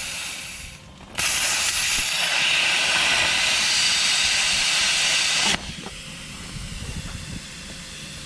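Handheld plasma cutter's arc hissing loudly as it cuts through a rounded-off cutting-edge bolt on a Case 450C bulldozer blade. The arc starts about a second in and cuts off suddenly after about five and a half seconds, leaving a softer hiss of air.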